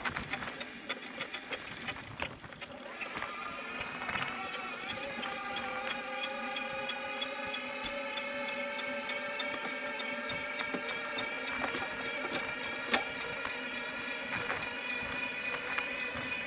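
Bicycle rear wheel squealing while riding: a steady, high-pitched whine that sets in about three seconds in and holds, with a light tick repeating several times a second.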